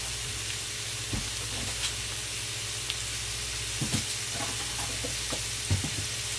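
Food frying with a steady sizzle, over a low steady hum, with a few light knocks about a second in, around four seconds in and near the end.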